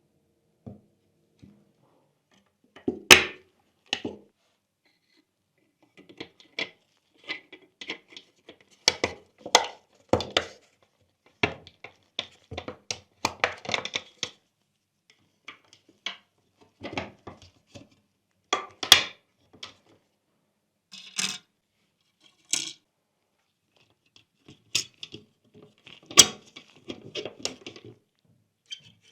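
Irregular clicks, taps and light knocks of small plastic and metal model parts being handled and fitted on a work surface, with a few sharper, louder clicks among them.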